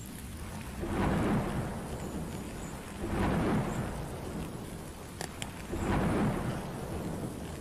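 Steady rain under a low, continuous rumble of thunder, with three louder swells of thunder about one, three and six seconds in.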